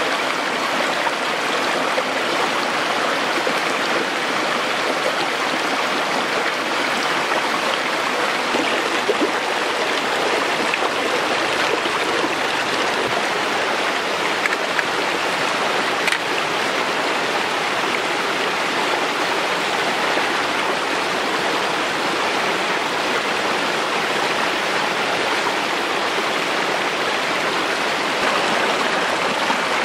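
Shallow rocky stream rushing steadily over and between stones in small cascades, with a few faint knocks.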